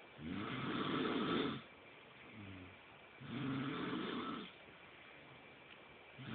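A person snoring in sleep: two loud snores about three seconds apart, each lasting over a second, with a softer breath sound between them, and the next snore starting at the very end.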